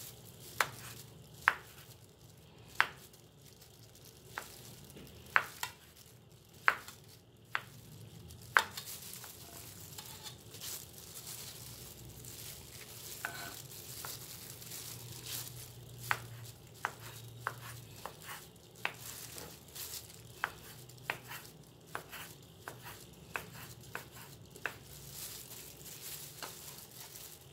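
Cleaver slicing young coconut meat into strips on a wooden chopping board: irregular sharp knocks of the blade meeting the board, a second or so apart at first and coming closer together from about halfway through.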